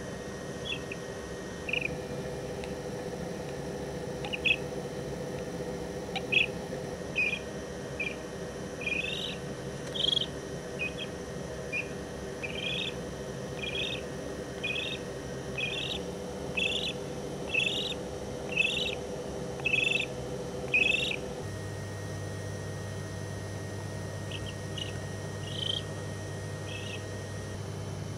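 Common crane chick peeping as it hatches from its egg: a long series of short, high peeps about one a second, stopping a few seconds before the end and then a few more. A steady low hum runs beneath.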